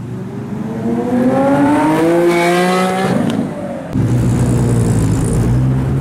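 Performance car engine accelerating hard, its pitch climbing for about three seconds before it eases off. About four seconds in, the sound switches abruptly to another car's engine running at a steadier, lower note.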